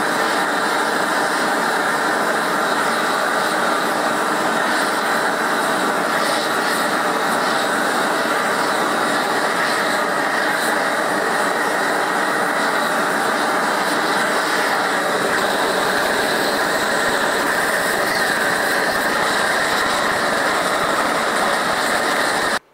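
Large gas blowtorch running at full flame with a steady, loud roar while heating a copper boiler for silver soldering; it stops abruptly near the end.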